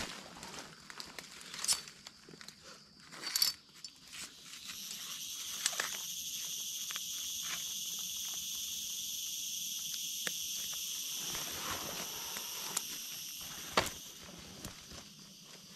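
Footsteps and crackling in dry leaves and brush, with scattered clicks and snaps. About four seconds in, a steady high-pitched insect drone rises and holds, then fades near the end.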